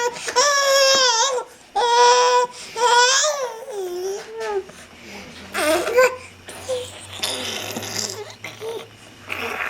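Seven-month-old baby making funny, high-pitched vocal sounds: about four long, drawn-out notes that bend up and down in the first half, then quieter, shorter babbling sounds.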